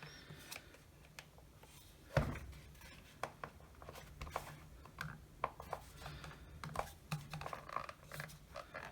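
Scattered light clicks and knocks of a cordless drill's plastic housing and parts being handled during disassembly, with a sharper knock about two seconds in, over a faint steady low hum.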